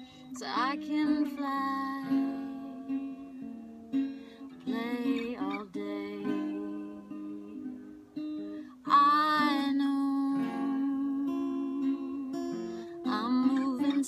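Fingerpicked acoustic guitar with a woman singing over it. Her voice comes in four phrases that slide up and down in pitch.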